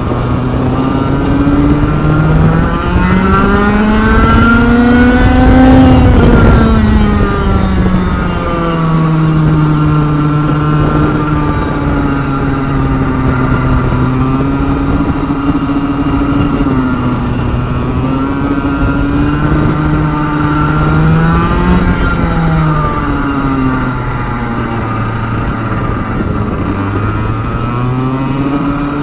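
Go-kart engine heard from the driver's seat on a lap, revving up to a peak about six seconds in, then dropping back. It holds middling revs for the rest of the lap, easing off briefly several times and picking up again near the end.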